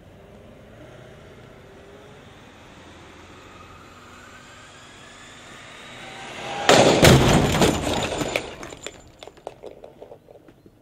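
Motorcycle hitting the side of a combine harvester at about 61 km/h in a crash test. A faint rising whine comes first, then a loud crash about seven seconds in. A rattling clatter of parts skidding and settling on the road follows and dies away over about three seconds.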